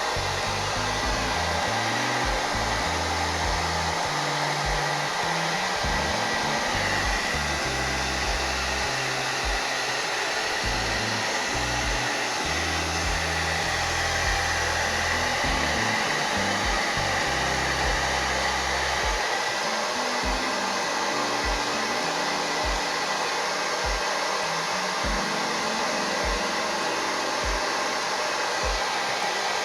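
Hand-held hair dryer blowing steadily on hot heat.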